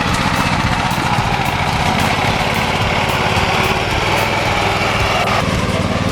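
A small engine running steadily at high speed, its sound changing abruptly about five seconds in.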